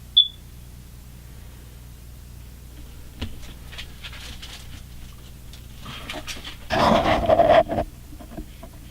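A dog panting in a short burst about seven seconds in, over a low steady hum, with a brief high chirp at the very start.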